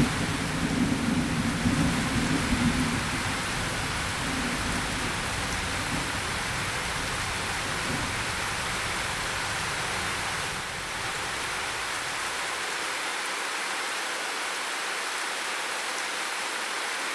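Steady rain hiss, with a low thunder rumble dying away over the first few seconds.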